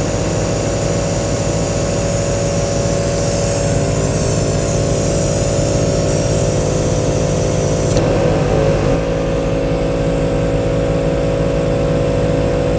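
ARB 12-volt electric air compressors running steadily, inflating large off-road tyres as they near 40 psi. A sharp click about eight seconds in, after which the pitch of the drone shifts.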